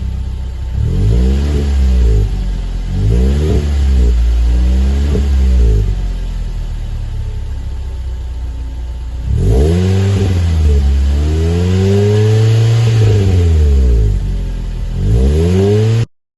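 Kia Forte 1.6 SX four-cylinder engine revved through a full aftermarket exhaust system with a quieter muffler: three quick throttle blips, a few seconds of idle, then longer revs, one held up for a few seconds, and a final blip near the end.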